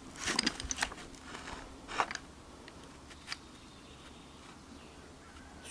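Motorcycle gearbox shafts being turned and shifted by hand: a few light metallic clicks of the gears in the first second, another click about two seconds in, then only faint handling.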